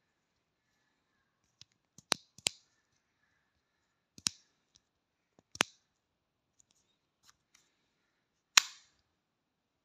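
Sharp plastic clicks of a blood-glucose lancing pen being cocked and fired, a few single snaps a second or more apart, the loudest near the end.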